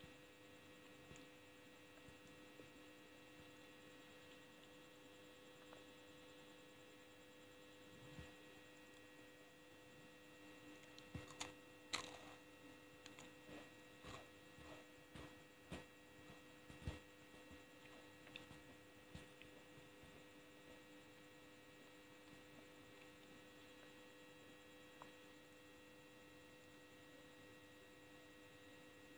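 Faint steady electrical hum of several fixed tones, with a run of short wet clicks and smacks from chewing gummy candy close to the microphone between about 11 and 19 seconds in, the loudest about 12 seconds in.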